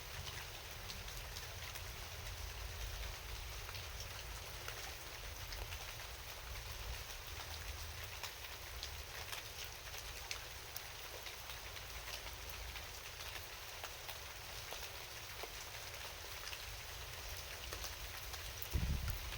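Steady rain falling at night, with many separate drops ticking close by over an even hiss. A low rumble runs underneath, and there is a brief low thump near the end.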